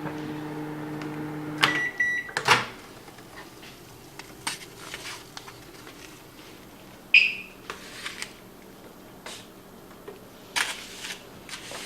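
Microwave oven running with a steady hum that stops about two seconds in, followed by a short high beep and a loud click as the door is opened. Scattered clicks and knocks follow.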